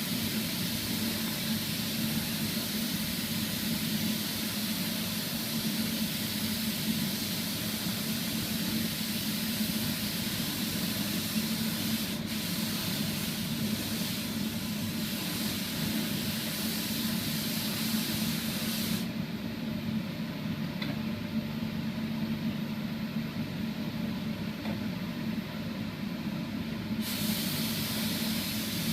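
Air spray gun hissing as it sprays sanding sealer, over a steady low hum. The hiss stops for about eight seconds past the middle, then starts again.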